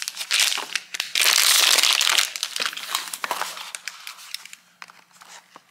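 Thin plastic wrapping being crinkled and crumpled by hand, loudest and most continuous from about one to two seconds in, then thinning into scattered light crackles and taps as a small cardboard blind box is picked up and handled.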